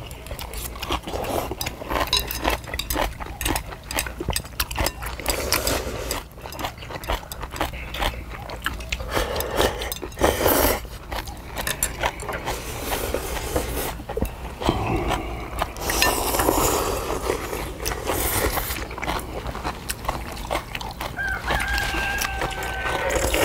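Close eating sounds: chewing and slurping of jjamppong noodles and rice, with chopsticks clicking against metal plates. Near the end a rooster crows once in the background, a held call of about two seconds.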